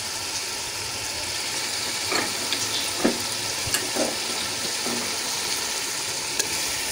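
Onion, tomato and spice masala sizzling and bubbling in a steel pot, a steady hiss. A few short scrapes stand out, about one a second from two seconds in.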